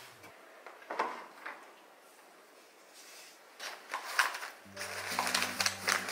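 A picture frame knocks lightly on a wooden shelf as it is set down, once sharply and then once more softly. Later the paper wrapping of a flower bouquet crinkles as it is handled, and soft background music comes in near the end.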